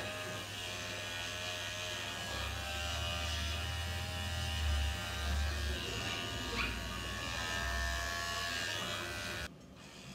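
Electric dog grooming clippers running while trimming a Bichon Frise's coat, a steady buzzing hum that swells in places and cuts off suddenly near the end.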